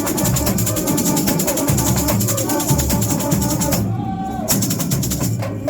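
Samba school bateria playing samba: deep surdo bass drums under fast, dense snare and shaker strokes. The high shakers and snares drop out briefly twice, about four seconds in and again near the end, while the drums carry on.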